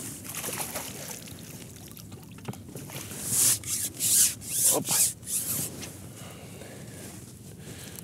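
A common bream thrashing at the surface as it is drawn into a landing net, giving a run of loud splashes about three to five and a half seconds in.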